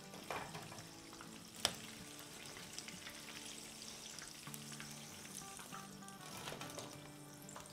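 Battered chicken pakoras deep-frying in hot oil, a faint steady sizzle. A single sharp clink of the metal slotted skimmer comes about a second and a half in.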